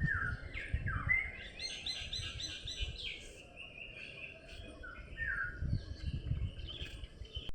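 Songbirds singing: short whistled phrases and a rapid trill about two seconds in, over a low rumbling background noise. The sound cuts off abruptly at the end.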